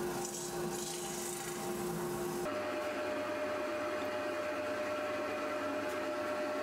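Powermatic wood lathe running with a steady motor whine while the spinning mahogany bowl is rubbed by hand, a dry hiss of wood contact over the hum. About two and a half seconds in the sound cuts abruptly and the whine steps up to a higher pitch, with the rubbing quieter.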